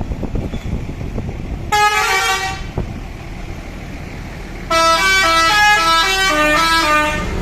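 Bus telolet horn, a multi-tone musical air horn, playing a melody: a short burst about two seconds in, then a longer run of stepping notes from about five seconds in, over low engine and street rumble.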